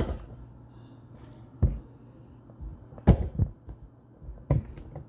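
Pasta salad being tossed by hand in a mixing bowl: a few dull, irregular thumps and knocks, the loudest about three seconds in.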